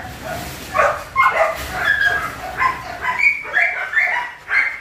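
Several dogs barking and yipping in short, overlapping calls, several a second.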